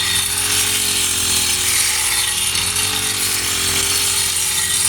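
Small engine of a grass-cutting machine running steadily, its pitch wavering slightly, over a loud steady hiss.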